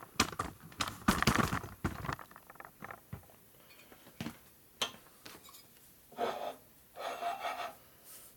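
Workshop handling noise at a hydraulic shop press as metal parts are picked up and set down. A quick run of sharp clicks and knocks comes in the first two seconds, then scraping and rubbing near the end.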